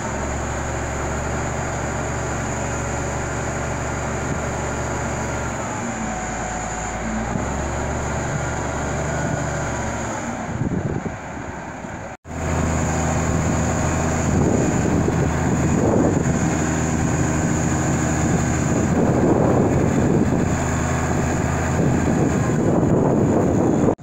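Engine of a hydraulic boat-lift tractor running steadily. After a cut about twelve seconds in it is louder, rising and falling in repeated surges as its hydraulic arms lift the yacht out of the water.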